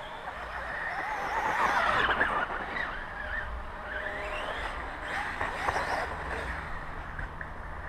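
RC motocross bike's motor whining, its pitch rising and falling as the throttle is worked through the corners and jumps, loudest about two seconds in, with a few sharp clicks about three-quarters of the way through.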